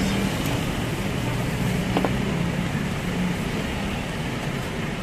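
Steady road traffic noise with a low engine hum, and a single light clink about two seconds in.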